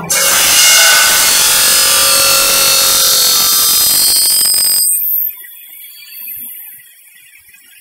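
Large circular saw blade of an automatic aluminium profile machining centre cutting through an aluminium profile: a loud, high-pitched screech with ringing whistle-like tones that cuts off abruptly about five seconds in, leaving a much quieter machine hum.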